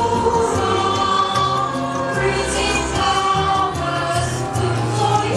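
Music with a choir singing held notes over a bass line.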